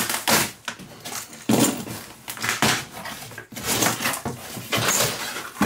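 Cardboard packaging being handled: box flaps scraping and folding back and inner cardboard boxes being shifted, a string of irregular rustling scrapes and light knocks.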